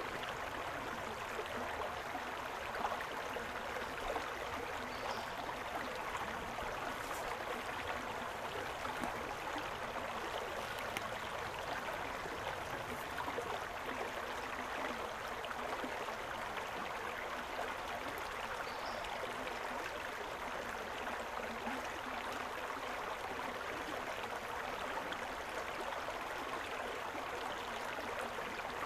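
Shallow river running over rocks in a riffle: a steady rush and babble of water.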